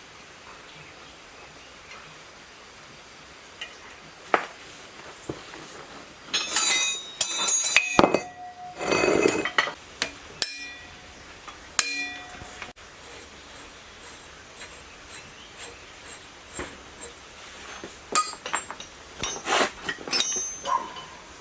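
Metal tools and parts being handled and set down, with scattered sharp clinks and taps, some ringing briefly, and a short scrape. The clinks start about four seconds in and bunch up twice, in the middle and near the end.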